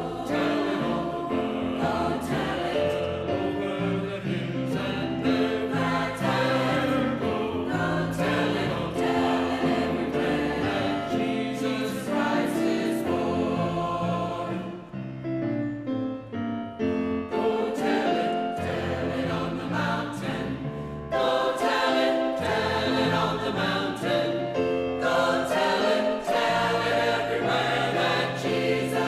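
A choir singing with instrumental accompaniment, thinning briefly about halfway through before the full sound returns.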